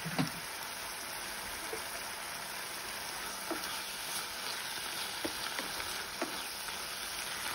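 Broccoli and tomato sauce simmering in an open pan, a steady bubbling hiss, with a few light clicks and knocks as a wooden spatula stirs it. Two sharper knocks come right at the start.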